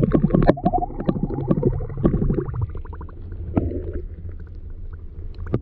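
Muffled water gurgling and a low rumble picked up by a camera's microphone underwater, with scattered clicks and knocks; it grows quieter about halfway through.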